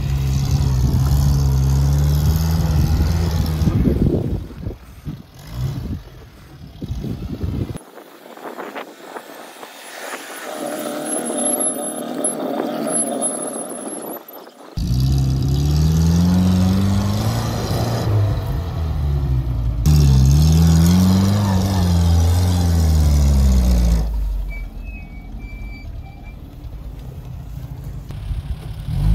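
UAZ 469 off-roader's engine revving up and down under load as it climbs in a gully, the revs repeatedly rising and falling. It is thinner and quieter for several seconds in the middle, then comes back loud.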